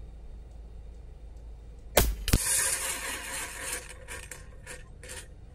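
A moderated .25-calibre AEA Challenger Pro precharged pneumatic air rifle fires once about two seconds in. About a third of a second later a second sharp crack follows, the pellet striking a hanging steel animal silhouette target, with a hiss dying away. Then come faint rhythmic scraping clicks, about three a second, as the struck target swings on its hanger.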